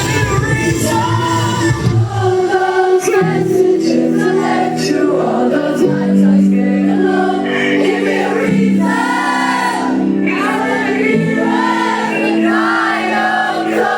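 Live rock band playing a song's closing bars. About two seconds in, the drums and low guitars drop away, leaving long held chords under drawn-out wordless singing.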